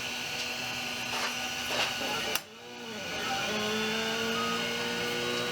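Anet A8 3D printer's stepper motors whining at steady pitches as the print head moves, over a steady fan hiss. The sound drops out briefly about halfway through, then comes back as a two-note whine.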